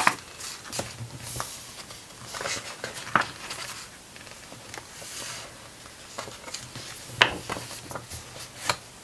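Pages of a large hardcover art book being flicked through and smoothed flat by hand: soft paper swishes and rustles with a few sharp page flicks, the clearest about three and seven seconds in.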